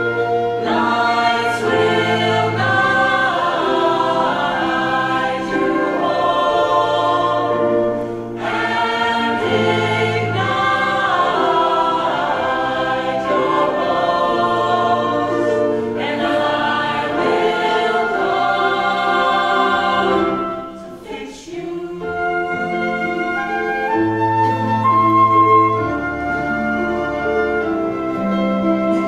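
Choir and two soloists, a man and a woman, singing with a small live ensemble including strings. The music thins out briefly about three-quarters of the way through, then carries on.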